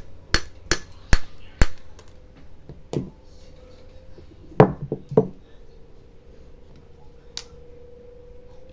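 Sharp metal taps and clicks: a MOSFET held in pliers is knocked against a steel hammer head to crack its package open. There are about five quick taps in the first two seconds, then a few scattered clicks, with a faint steady hum underneath.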